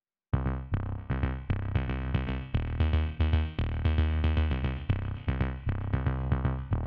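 Electronic music with a drum-machine beat and synthesizer, starting suddenly about a third of a second in after silence.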